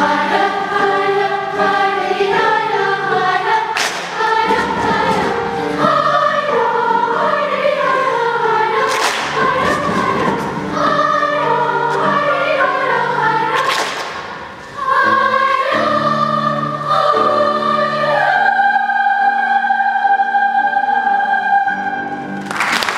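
Children's choir singing, with a few sharp percussive hits along the way and a brief drop about two-thirds through. The song ends on a long held chord near the end.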